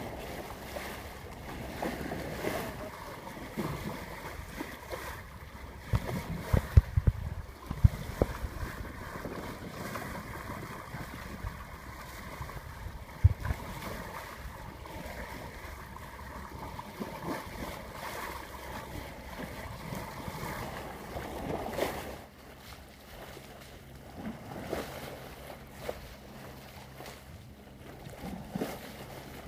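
Water rushing and splashing at the bow of a motorboat under way, over the steady hum of its engine, with wind on the microphone. There are several sharp low thumps about a fifth of the way through and one more just before the halfway point, and the engine hum changes note about three-quarters of the way through.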